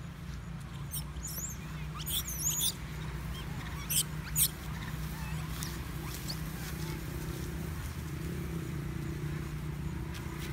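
Baby long-tailed macaques squealing: several short, high, wavering squeaks in the first half, the loudest a little over two seconds in and twice around four seconds in, over a steady low background hum.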